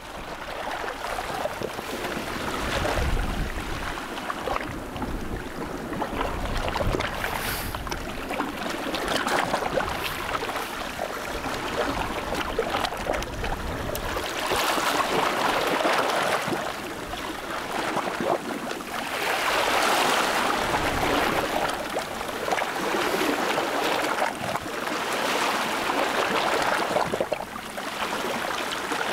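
Waves washing and lapping, swelling and easing every few seconds, with wind buffeting the microphone now and then.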